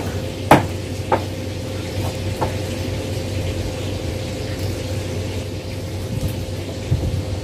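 Kitchen background: a steady low hum with a faint steady higher tone, and a few sharp knocks in the first two and a half seconds.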